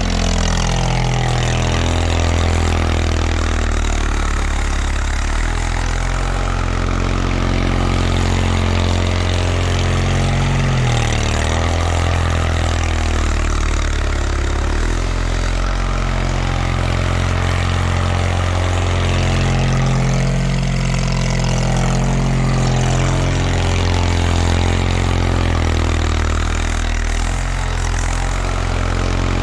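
1979 Bolens HT-23 garden tractor's 23 hp Kohler K582 opposed-twin engine running steadily, its note shifting slightly now and then while clearing snow.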